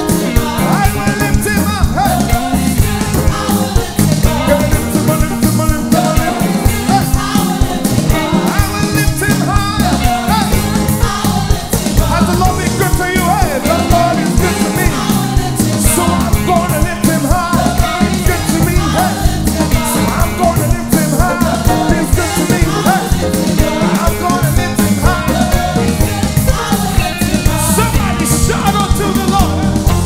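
Live gospel worship music: a lead singer and backing vocalists singing over keyboard and a band with a steady beat.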